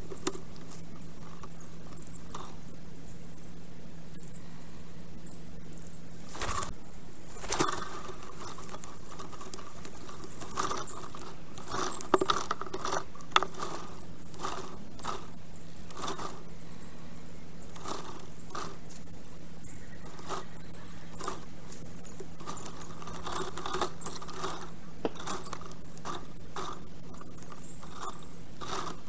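Nest-camera sound of a black stork reworking its stick nest: a rapid, irregular scatter of clicks and rustles of dry sticks, the loudest a little before 7 s, near 7.5 s and twice around 12–13 s. Under it run high-pitched chirping and a steady low hum.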